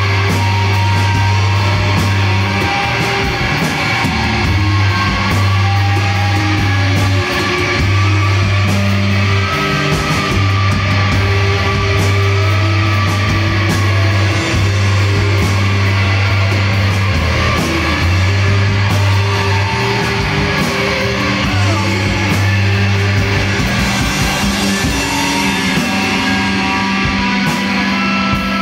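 Rock band playing: several electric guitars, a bass guitar holding long low notes that change every few seconds, and a drum kit with steady cymbal and snare hits.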